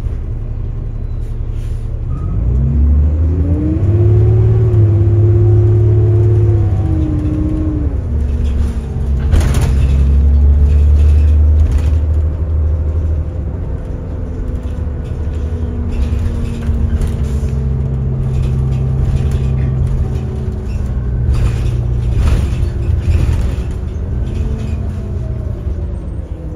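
Cummins ISL diesel engine and Allison B400R automatic transmission of a 2005 New Flyer D40LF city bus, heard from inside the passenger cabin. The engine pitch climbs as the bus pulls away about two seconds in, drops at an upshift around seven seconds, then holds steady at cruise and eases off near the end, with interior rattles and knocks.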